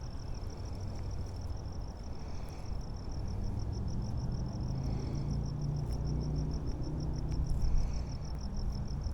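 A cricket chirping steadily: a high trill of fast, even pulses. A low rumble swells under it through the middle.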